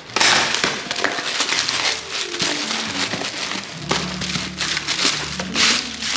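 Packaging crinkling and rustling in continuous handling, with many small crackles. Quiet background music plays underneath from about two seconds in.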